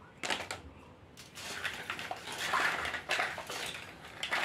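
Small plastic toys clattering and rustling against each other as a hand rummages through a pile of them, getting busier about a second in.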